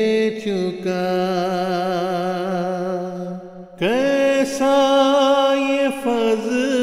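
Unaccompanied men's voices singing an Urdu nazm (devotional poem), holding long notes with vibrato. A held note fades out about three and a half seconds in, and a new phrase begins about four seconds in.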